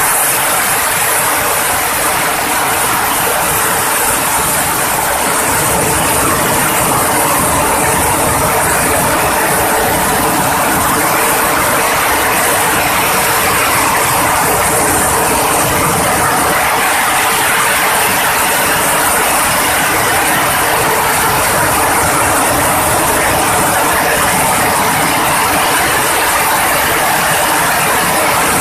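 Dry coffee cherry huller running steadily while it husks dried coffee cherries: a constant loud mechanical rattle over a steady hum.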